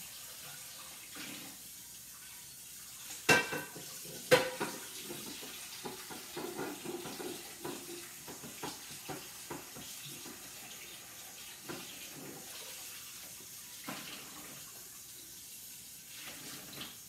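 Kitchen tap running into the sink while a utensil is rinsed under it, with two loud clanks about three and four seconds in and a run of lighter clinks after them.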